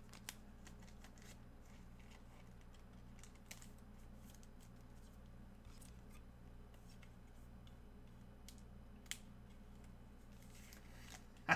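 Faint scattered clicks and light rustling of trading cards and plastic card holders being handled, over a steady low hum. Three sharper clicks stand out: right at the start, about three and a half seconds in, and about nine seconds in.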